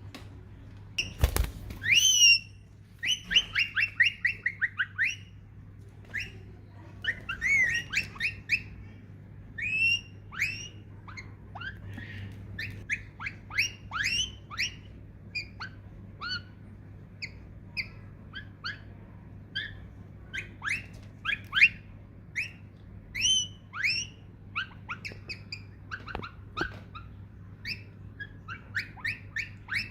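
Parakeet calling: runs of short, sharp chirps, each sweeping quickly down in pitch, repeated throughout, with a single knock about a second in.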